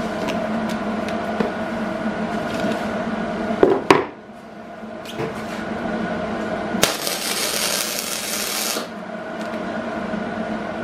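Steady electrical hum from the welding equipment, with a metal clank about four seconds in. About seven seconds in, a MIG welder's arc hisses for about two seconds as a tack weld is laid on the steel rod guardrail.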